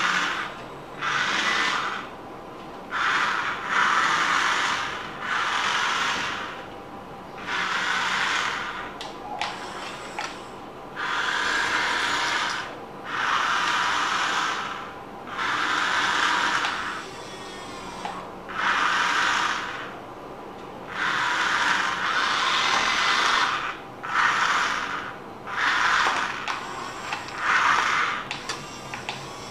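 Small electric motor of a wired remote-control toy crane truck whirring in repeated bursts of about a second, stopping and starting again and again with short pauses between.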